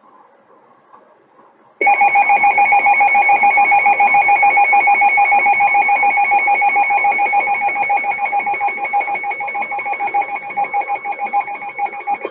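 NOAA Weather Radio alert tone played through a radio speaker: a loud, steady electronic tone that starts suddenly about two seconds in and holds for about ten seconds. It is the attention signal that opens an emergency alert broadcast, here a severe thunderstorm warning.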